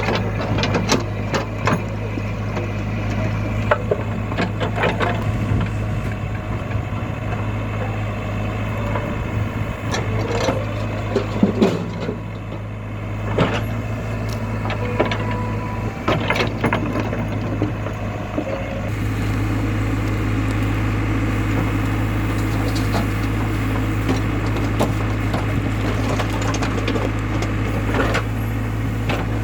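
Diesel engine of a backhoe loader working, running steadily under scattered clanks and knocks as mud is loaded into a tractor trailer. About two-thirds of the way through, the engine note gets louder and fuller, as if under more throttle.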